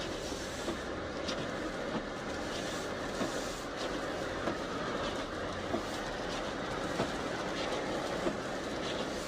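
Steady tyre and road rumble from a 2014 Jeep Grand Cherokee's Cooper tyres rolling on a snow-covered road, heard inside the cabin, with short light knocks about once a second.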